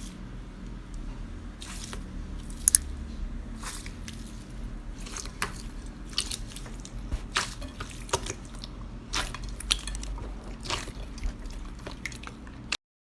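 Slime being squeezed and pressed by hand, giving wet squishes and small pops at irregular intervals over a low steady hum. The sound cuts to silence just before the end.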